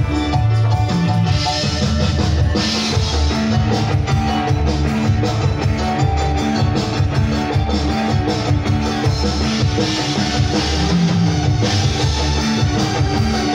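Live band playing an instrumental passage, with a drum kit and drums keeping a steady, loud beat over bass and other instruments.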